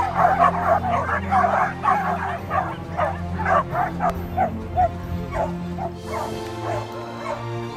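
A pack of dogs barking over and over at a toy dangled on a pole, the barks densest in the first four seconds or so and thinning out after, with background music underneath.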